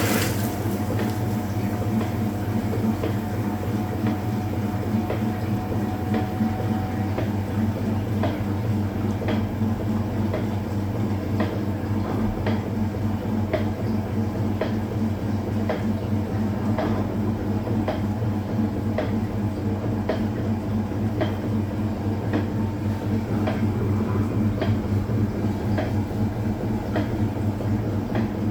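Hoover Automatic 820 washing machine running, most likely in its spin, with a steady motor hum and a regular clicking about once a second.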